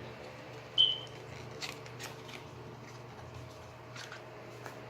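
Small cosmetic bottle and its packaging being handled: a short, high squeak about a second in, then a few light clicks.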